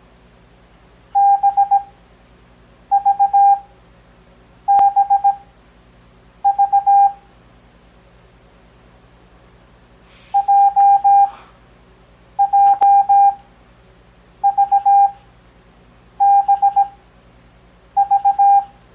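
Morse code (CW) practice tone: a steady mid-pitched beep keyed into nine separate letters, each a quick cluster of dots and dashes sent at 17 words per minute with long Farnsworth gaps between letters for a 6 words-per-minute overall pace. The fifth letter, about ten seconds in, is the longest.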